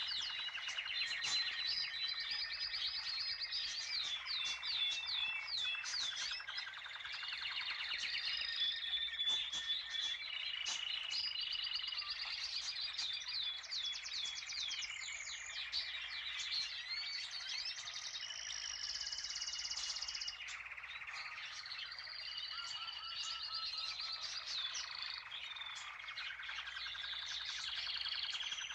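Dense chorus of many songbirds chirping and trilling together, overlapping calls and rapid trills throughout.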